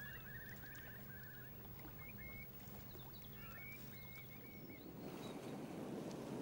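Faint bird calls, short chirps and trills, over a quiet sea shore. About five seconds in, a steady wash of wind and choppy water takes over and grows louder.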